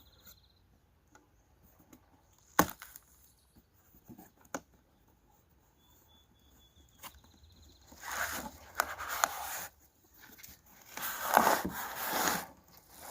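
Cardboard and styrofoam packing being torn and pulled off a mini fridge: a single sharp knock about two and a half seconds in, a few light clicks, then two stretches of rough tearing and scraping in the second half.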